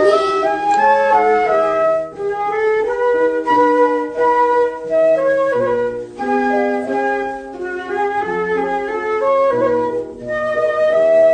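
Instrumental break in a children's song: a flute-like melody of short held notes over a lower bass line, with no singing.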